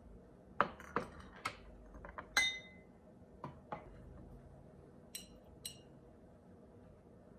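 A glass butter dish and its glass lid being handled: a string of knocks and clinks, the loudest about two and a half seconds in ringing briefly. Two short ringing clinks follow about five seconds in as metal tongs pick butter cubes from the glass dish.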